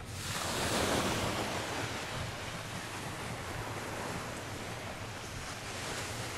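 Ocean surf washing onto a sandy beach, swelling as a wave breaks about a second in, then a steady wash.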